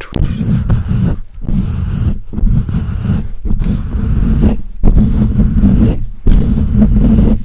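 Fast, aggressive rubbing and scratching directly on a microphone, heard as a loud, low, muffled rumble. It breaks off briefly about every second or so and then starts again.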